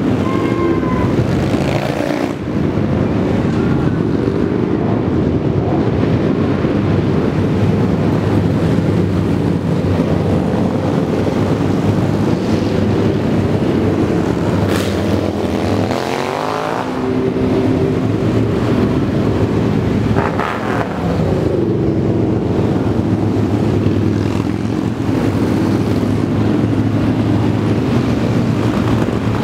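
A steady stream of motorcycles, mostly large touring and cruiser bikes, riding past with a continuous engine rumble. A couple of times about halfway through, single bikes pass close and their engine note sweeps down as they go by.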